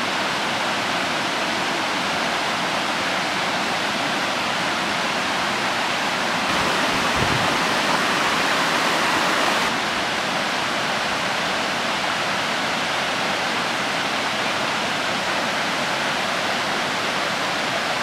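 Steady rush of water pouring over a river weir, a little louder for about three seconds in the middle.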